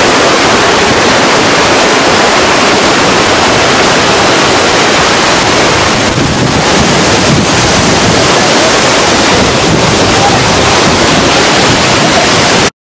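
Floodwater pouring over a dam spillway: a loud, steady rush of water that cuts off suddenly near the end.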